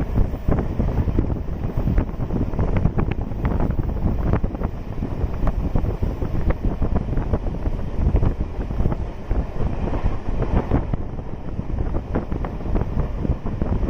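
Wind buffeting the microphone over the rumble and rattle of a moving MEMU electric passenger train, with many short knocks.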